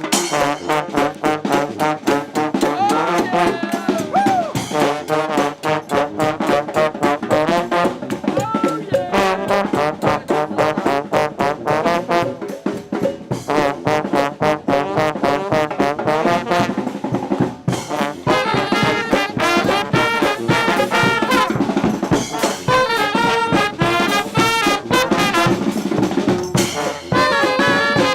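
Brass band playing, with trombones and trumpets over a steady drum beat.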